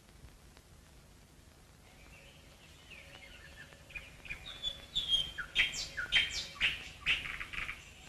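Birds chirping: quick high calls that start faintly about two seconds in and grow loud, several to a second, with short rising and falling sweeps.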